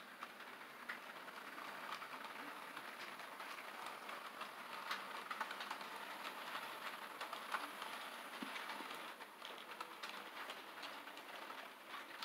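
HO scale model freight train rolling past on the track: a faint, steady rattle of its wheels, with many small irregular clicks as they run over the rail joints.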